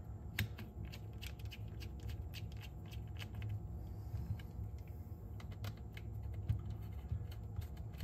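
Small irregular clicks and light metallic taps of a metal piece and small hardware being handled and fitted back onto a cassette deck's chassis, over a steady low hum.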